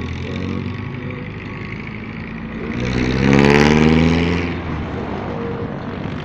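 Motorcycle riding in traffic, its engine and wind noise steady. About three seconds in, an oncoming vehicle passes close: its engine swells loud for about a second and a half, and its note drops in pitch as it goes by.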